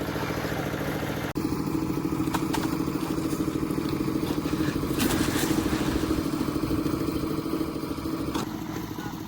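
Concrete mixer's engine running steadily at a constant speed, with a few knocks and clatters over it.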